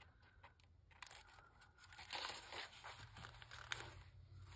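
Paper pages of a handmade journal rustling and crinkling as they are leafed through by hand, in a few soft riffles.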